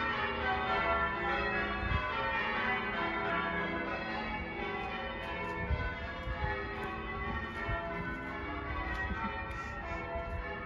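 Church bells of St Anne's Limehouse pealing, several bells sounding in overlapping succession without a break.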